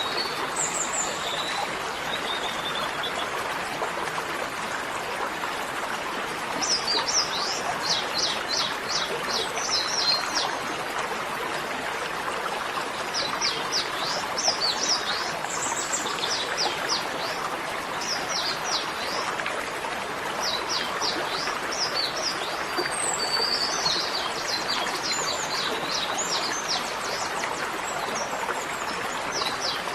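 Small birds chirping in quick runs of short, falling notes, several times over, above a steady rushing noise like running water.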